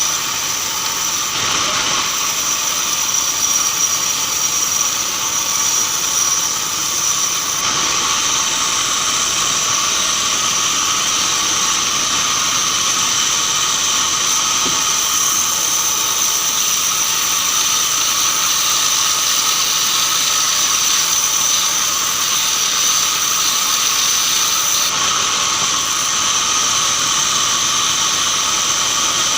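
Band sawmill running steadily with a high whine over loud, even noise, its blade sawing a keranji log.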